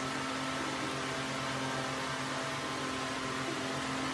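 A steady low hum with an even hiss, unchanging throughout, like a running fan or small motor.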